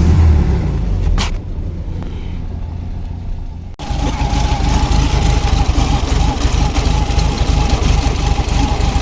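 VW Beetle's air-cooled flat-four engine pressed to full throttle: it swells briefly, then bogs and won't pick up, a sign of a dirty carburetor that the owner puts down to a blocked jet. About four seconds in, the sound changes abruptly to steady, rough running with a steady whine over it.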